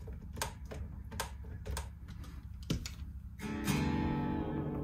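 A run of small clicks and taps as a screwdriver adjusts the pickup height on an electric guitar. About three and a half seconds in, a chord is strummed through the amplifier and rings on.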